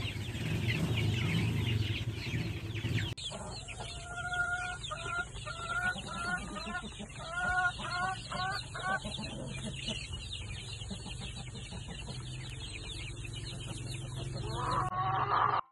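Rhode Island Red chickens clucking and chirping in a coop. About three seconds in, the sound changes abruptly to a pen of young chicks peeping, with a run of short, clear repeated calls in the middle.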